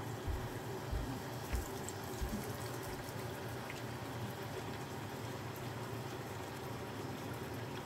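Bannock (fried bread) dough frying in shallow oil in a frying pan: a steady sizzle, with a few soft bumps in the first few seconds.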